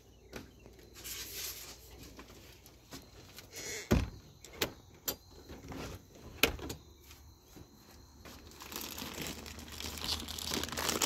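Scattered clicks and two sharp knocks, about four and six seconds in. From about nine seconds on, a plastic bag of hickory wood chips crinkles and rustles as it is handled.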